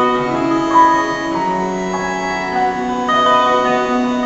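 Live instrumental break: a harmonica plays a melody of held notes over a strummed acoustic guitar.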